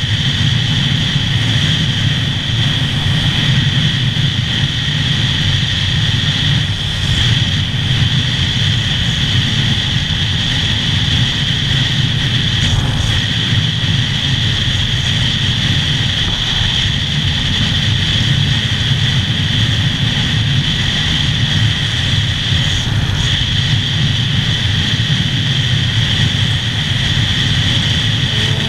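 Stock Yamaha R6 inline-four motorcycle cruising at a steady speed, heard from a helmet-mounted camera: a constant rush of wind over the engine, with a steady high whine and no changes in revs.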